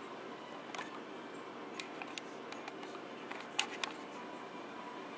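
Handling noise from a handheld camera: a handful of sharp small clicks over a low steady room hum.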